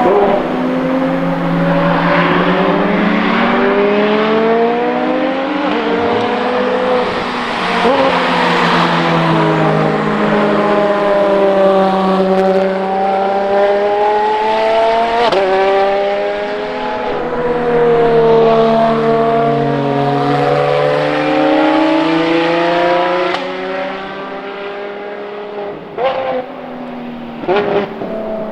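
Ferrari FXX K Evo naturally aspirated V12 engines at high revs, the pitch rising and falling through gear changes as the cars pass. Near the end come sharp revving blips, typical of downshifts.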